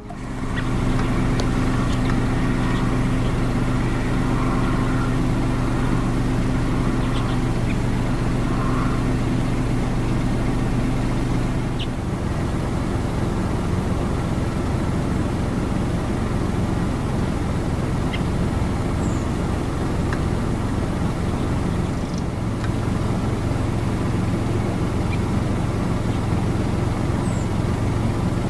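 Idling car engine: steady noise with a low hum that fades about twelve seconds in and returns near the end, and a few faint high chirps now and then.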